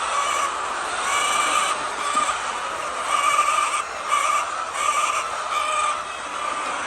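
A flock of chickens calling together, a constant din of overlapping clucks and squawks.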